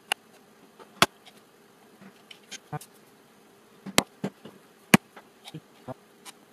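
Small 3D-printed plastic parts and hand tools being handled and set down on a wooden desk: a few sharp knocks, the loudest about a second in and twice near the middle, with softer clicks between, over a faint steady hum.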